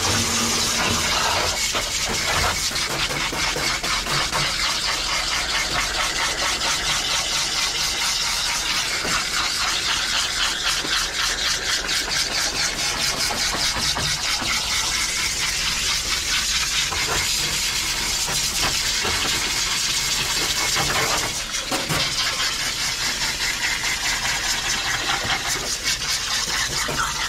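Water from a handheld bathing sprayer hissing steadily as it is worked through a husky's wet coat in a stainless steel tub.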